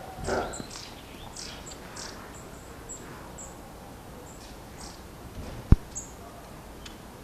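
Outdoor ambience of short, high chirps repeating irregularly, with a brief thump at the start and one sharp knock about two-thirds of the way through, the loudest sound.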